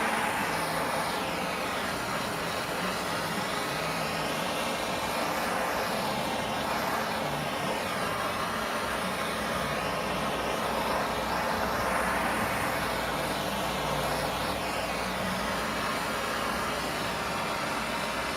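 Handheld gas torch flame hissing steadily while it is swept over wood to scorch it.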